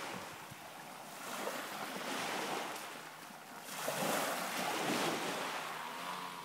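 Small waves breaking and washing up a pebble beach, the surf swelling and fading every couple of seconds, loudest about four seconds in.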